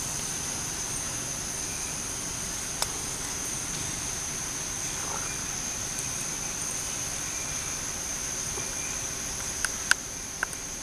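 Steady high-pitched drone of insects in the trees, crickets or cicadas, holding one even pitch throughout. A single sharp click about three seconds in and a few louder clicks near the end cut through it.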